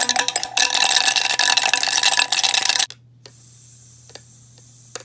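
Toy blender running with a loud, buzzing rattle, cutting off suddenly about three seconds in. After it, a faint steady high hiss with a few light clicks.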